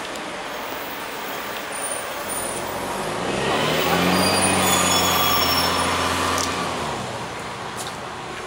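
A heavy road vehicle's engine passing nearby. It grows louder from about three seconds in and fades away by about seven seconds, over a steady background hiss.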